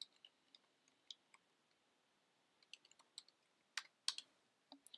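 Faint computer keyboard typing: about a dozen soft, irregularly spaced keystroke clicks.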